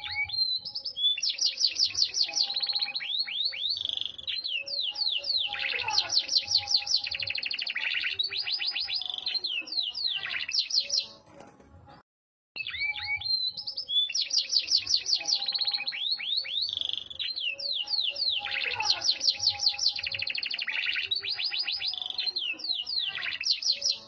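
Yorkshire canary singing long phrases of fast trills and rapidly repeated high notes. About halfway there is a break of a second before the same song passage starts again.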